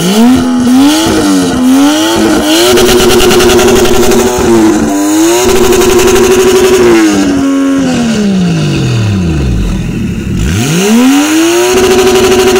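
Toyota Chaser JZX100's turbocharged straight-six revved hard for an exhaust sound-level test: a few quick blips, then held at high revs for a second or two at a time, reading about 115 dB on the meter. About three quarters of the way through the revs fall away to low, then climb straight back up and hold again.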